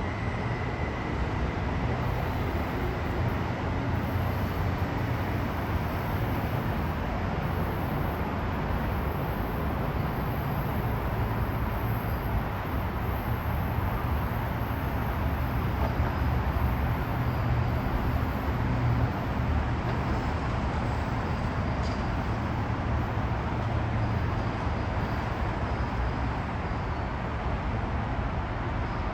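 Caltrain commuter train pulling out of the station and running on past, a steady low rumble of wheels and traction.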